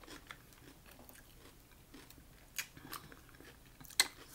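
Cooked mussel shells clicking lightly as they are picked through by hand, with a few sharp clicks and the sharpest just before the end, over quiet eating sounds.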